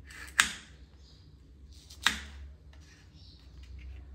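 Kitchen knife cutting through a green bell pepper (capsicum) and striking a wooden cutting board: two sharp cuts about a second and a half apart, then a few fainter cutting sounds near the end.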